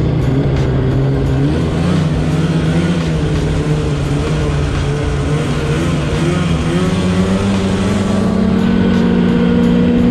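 Polaris Switchback Assault 850 snowmobile's two-stroke engine running at a steady trail cruise. The engine note wavers slightly and rises a little near the end.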